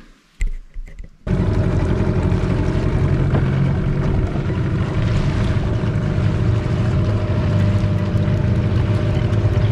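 15 hp outboard motor on a small aluminium boat running steadily underway, with wind on the microphone. It cuts in suddenly about a second in, after a couple of short knocks.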